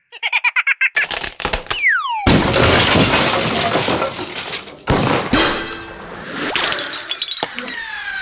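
A string of cartoon sound effects: a rapid rattling flutter, then a falling whistle, then a long crash of breaking and shattering with a couple of sharp hits, and another falling whistle near the end.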